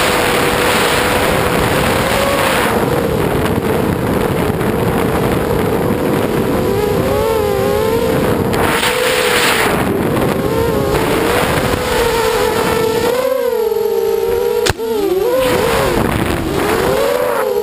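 Electric motors and propellers of a small FPV aircraft, heard from the onboard camera: a steady whine whose pitch wavers and glides up and down with the throttle, over air rushing past the microphone. A single sharp click sounds about 15 seconds in.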